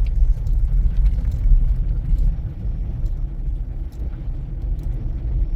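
Steady low rumble of a car's engine and tyres heard from inside the cabin while driving on a snowy road, with a few faint scattered ticks.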